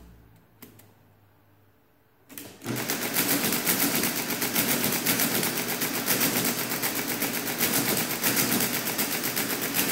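A few light clicks as the controls are worked. About two and a half seconds in, the Friden S10 electromechanical calculator's motor-driven mechanism starts cycling, a fast, even, rapid-fire clatter that keeps going as the machine works through an automatic calculation.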